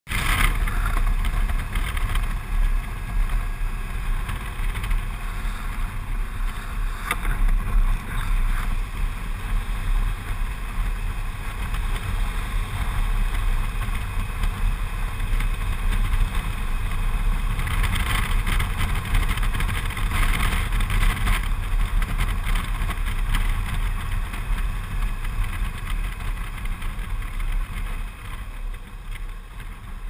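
Motorcycle on the move heard from a helmet-mounted camera: a steady rush of wind over the microphone with engine and road rumble underneath. It grows quieter near the end as the bike slows.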